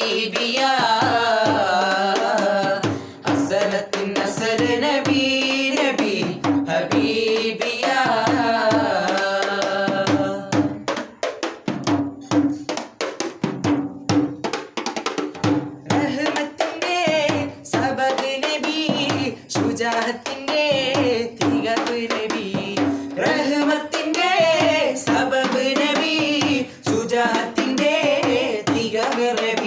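Several male voices singing a Mappilappattu together, accompanied by a hand-played frame drum keeping a steady rhythm. Around the middle the voices drop out for a few seconds, leaving the frame drum on its own, and then the singing comes back in.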